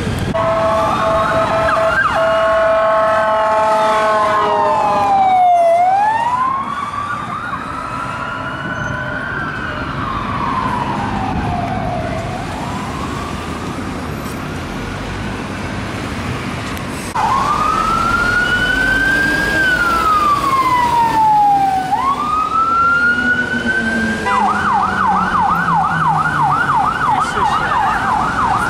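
UK emergency vehicle sirens sounding in city traffic. A held siren tone gives way to a slow wail that rises and falls several times. Near the end the siren switches to a fast yelp of about three or four sweeps a second.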